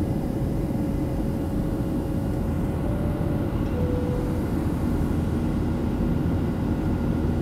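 Boeing 737-700's CFM56-7B jet engines and rushing airflow heard inside the cabin: a steady, even low-pitched noise with a faint steady hum running through it.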